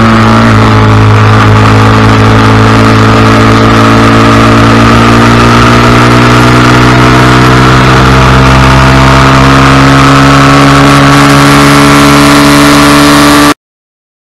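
Honda Cub 90's small single-cylinder four-stroke engine running hard at racing speed, with wind rush on the onboard microphone. The revs drop at a gear change about half a second in, then climb slowly as the bike accelerates, until the sound cuts off suddenly near the end.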